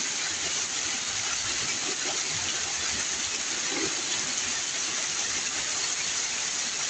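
Heavy rain pouring off the edge of a corrugated roof in a dense curtain of water, a steady even rushing hiss.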